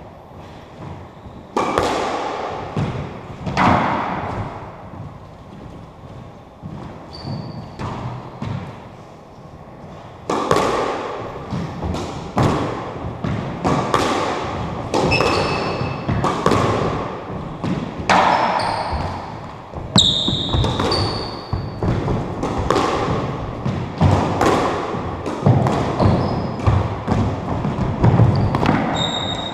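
Squash rally: the rubber ball is struck by rackets and smacks against the court walls, each hit a sharp echoing knock. Two hits come a couple of seconds in, then a steady run of about one a second from a third of the way through. Short squeaks from court shoes on the wooden floor come in among the hits.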